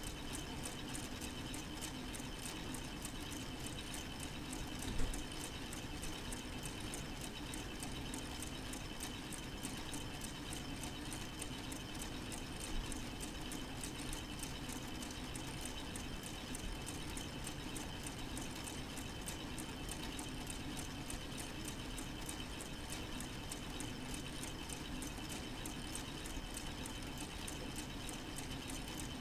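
K'nex model four-cylinder engine running, its plastic rods, gears and connectors clicking and rattling in a rapid, even patter over a faint steady hum. A sharper click stands out about five seconds in.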